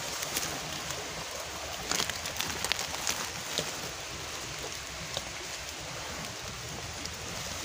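Rustling and crackling of dry leaves, bamboo litter and twigs as someone pushes through dense undergrowth, with a steady hiss and several sharp snaps in the first few seconds.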